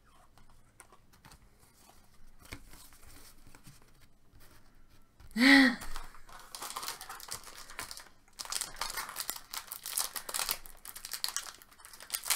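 Trading card pack wrapper being torn open and crinkled, with a dense crackling that starts about six seconds in after a few quiet seconds of light handling ticks. A short loud voice-like sound comes just before the crinkling starts.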